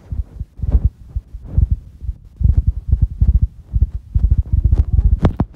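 Footsteps squelching through a muddy ploughed field, with wind rumbling on the phone's microphone: low, dull thumps about once a second.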